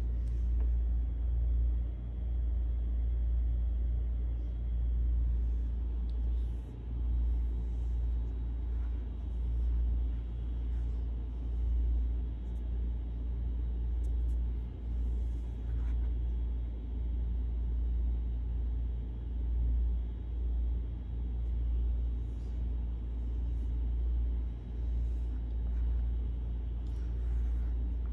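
Kitten purring, a continuous low rumble that swells and eases with each breath, about every two seconds, while it is scratched under the chin.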